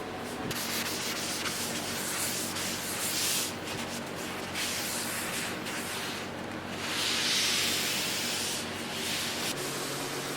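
Sandpaper sanding a wooden cutting board with 220 grit to take off varnish drips, in several passes of two to three seconds each, over a steady low hum.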